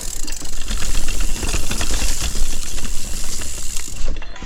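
Mountain bike riding over a rough dirt trail: tyres rolling and the bike rattling over bumps in quick irregular clicks, with wind rumble on the microphone.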